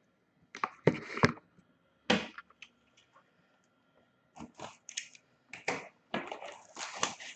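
Packaging of a sealed box of hockey trading cards being handled and opened: irregular sharp crackles and rustles, a few loud ones about a second in, then a denser run of crinkling over the last few seconds.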